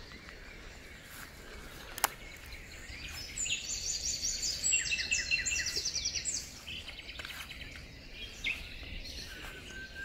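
Wild songbirds singing: rapid high trilled phrases from about three to seven seconds in, over a faint steady background hiss. A single click about two seconds in.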